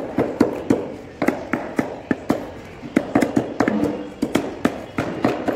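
Butcher's knife chopping chicken on a wooden log block: a rapid, uneven run of sharp knocks, about three to four a second.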